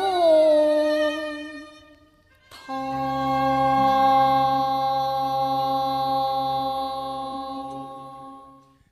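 End of a Cantonese opera song: the singers' last held note fades out, then after a brief gap the accompaniment's closing chord sounds suddenly and is held, slowly fading away.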